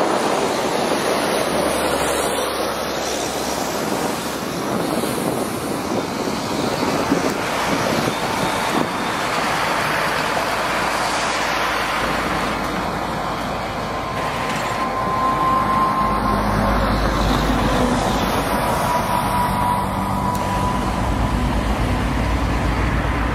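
Peterbilt box truck's diesel engine running as the truck drives slowly over gravel, a steady rumble that grows stronger about two-thirds of the way through, with a faint whine during that stretch.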